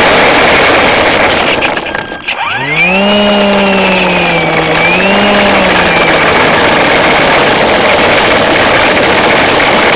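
Icon A5 RC model airplane in flight, heard from its onboard camera: loud rushing of air and motor noise over the microphone. About two seconds in the noise dips, then the motor and propeller spin up with a quickly rising whine that wavers and fades back into the rushing.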